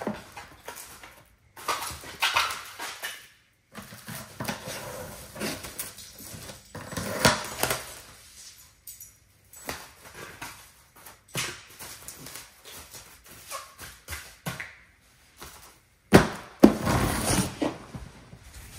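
Dog sounds, coming as short, irregular noises with brief silences between them and a louder stretch near the end.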